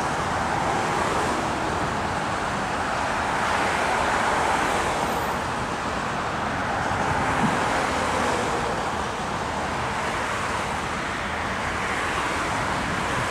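Steady rolling rumble of a BNSF coal train's cars passing on the rails, an even noise with no horn or squeal standing out.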